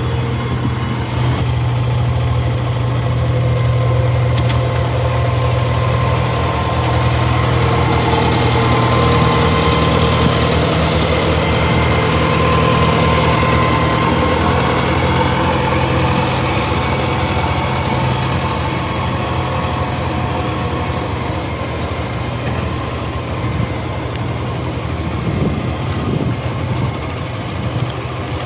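Heavy diesel engine running at a steady speed, its pitch shifting a little now and then.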